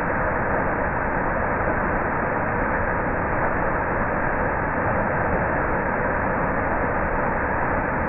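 Waterfall pouring over a rock ledge into a pool below: a steady, even rush of falling water.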